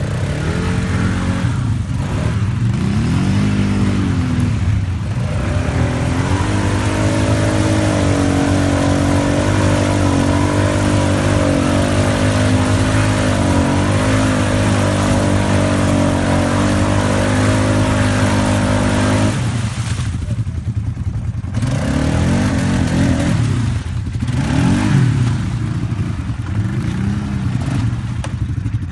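ATV engine revving hard as the quad churns through a deep mud hole with its wheels spinning. The revs rise and fall at first, then hold high and steady for about twelve seconds. They drop off suddenly, then come back in short blips near the end.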